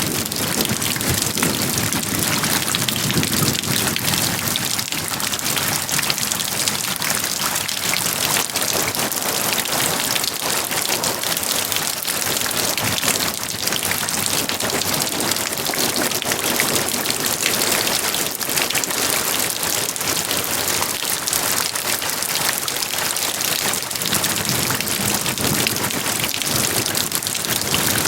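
Steady rain falling on a surface, a dense patter of individual raindrops.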